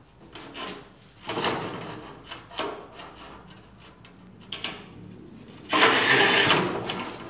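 Manual rail tile cutter's scoring wheel scraping across a rectified ceramic tile: a rough, grating scratch about a second long near the end, after a shorter scrape about a second in and a few light clicks from the carriage.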